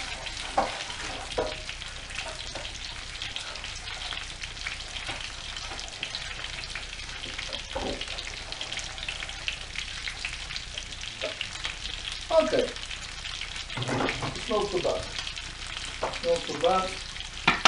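Breaded chicken pieces shallow-frying in hot oil in a pan: a steady crackling sizzle with fine pops.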